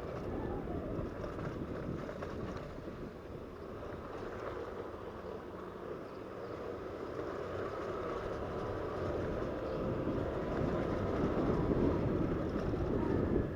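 Motorcycle on the move: engine and road noise with wind on the microphone, growing a little louder over the second half.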